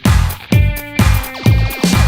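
Background music with a steady beat: funky rock with punchy drums and guitar.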